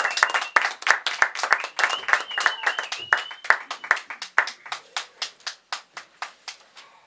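Audience clapping, dense at first, then thinning to scattered claps that die away near the end.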